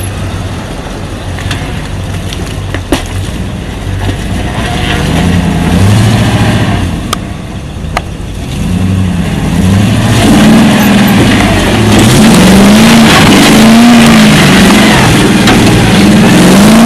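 Land Rover four-wheel drive's engine revving up and down under load as it crawls through deep mud ruts, getting louder as it comes alongside, with tyre and mud noise. Two sharp knocks in the first half.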